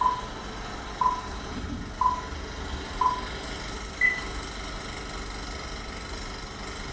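Film countdown leader beeps: four short, equal beeps a second apart, then a single higher beep about four seconds in, over a steady hiss and low rumble of old film sound.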